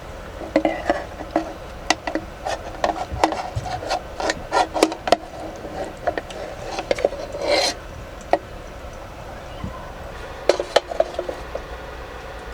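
Utensils clinking and scraping against dishes and a pot, in quick irregular clusters of knocks and scrapes with a brief pause before a last flurry near the end.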